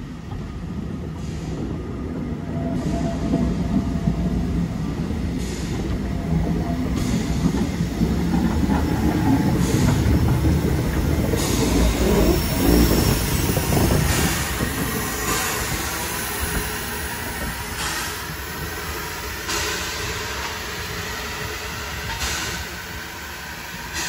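A1X Terrier 0-6-0 tank engine and its coach running slowly past, with a steady rumble of wheels on the rails. It is loudest as the engine goes by about halfway through and eases off afterwards.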